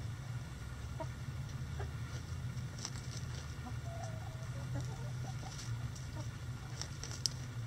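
Backyard hens clucking softly as they forage, with a short wavering call about four seconds in and a few sharp ticks, over a steady low rumble.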